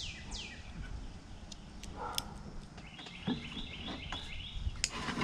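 A bird singing: a falling whistled note at the start, then a quick run of short, even high notes about three seconds in. A few sharp clicks come in between.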